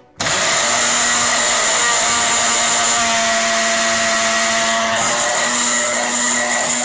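Black+Decker countertop blender switched on a moment in, its motor then running steadily at full speed as it grinds onion, garlic and spices with a little water into a liquid marinade.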